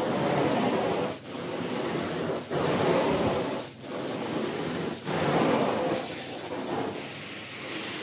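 Carpet cleaning wand on a truck-mounted extraction machine, its vacuum rushing in strokes across the carpet, with a short break about every second and a quarter. In the last few seconds the rush settles steadier and a little quieter.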